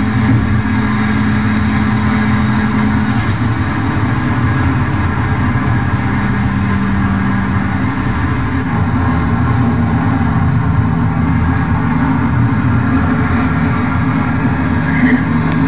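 Car engine and road noise heard inside a moving car's cabin at speed: a steady drone whose engine note drops lower in pitch twice, about three seconds in and again around eight seconds in.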